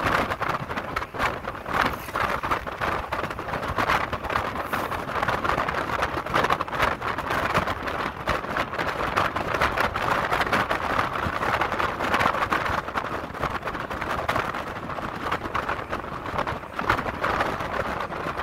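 Continuous rushing wind and road noise of a car moving at highway speed, heard from inside the vehicle, flickering unevenly throughout.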